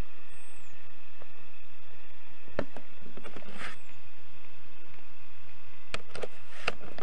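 Outdoor ambience while walking a sandy track with a handheld camera: a steady high hum, a few brief knocks from the walking and handling, and two short, high, falling whistles, one near the start and one near the middle.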